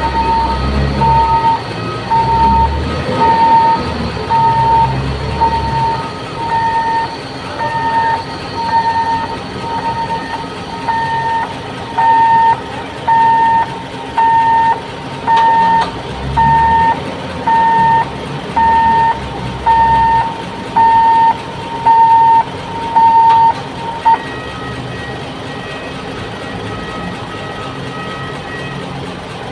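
RTG container crane's warning alarm beeping about once a second, over a diesel engine running underneath; the beeping stops about 24 seconds in.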